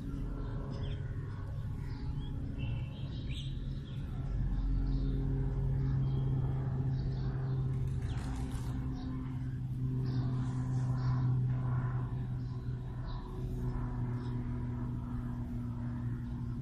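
Steady low rumble and hum, with faint bird chirps.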